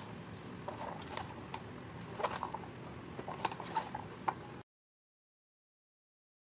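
Scattered light clicks and clinks of kitchen handling around a metal pot of chopped vegetables, over a faint steady hiss. The sound cuts off abruptly to silence about two-thirds of the way through.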